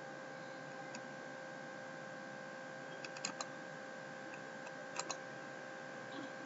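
Faint computer mouse clicks over a steady background hum: a single click about a second in, a quick cluster about three seconds in and a double click about five seconds in.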